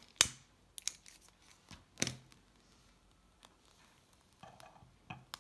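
Handling noises from lighting a small metal spirit burner and moving it into place under a Stirling engine: several sharp clicks and knocks, the two loudest about two seconds apart, a brief ringing sound a little past four seconds, and a couple more clicks near the end.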